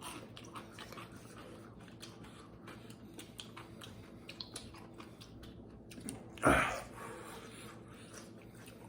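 People chewing and eating, with many small soft clicks of food and utensils, and one short louder knock about six and a half seconds in.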